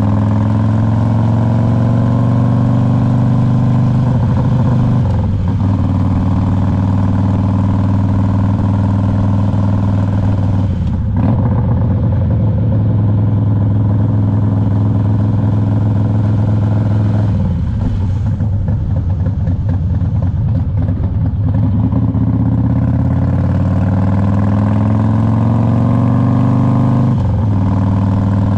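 2001 Harley-Davidson Road King's Twin Cam 88 V-twin engine running under way. Its pitch climbs and then drops at gear changes a few times, and it slows and roughens for a few seconds around the middle before pulling up again.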